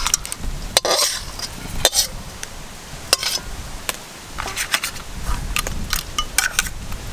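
Metal spatula scraping and clinking against a stainless steel plate and wok as thick crab curry is served out: a string of irregular scrapes and sharp clinks.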